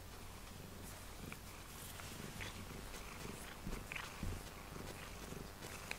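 Domestic cat purring close to the microphone, a low steady rumble, with a few faint ticks over it.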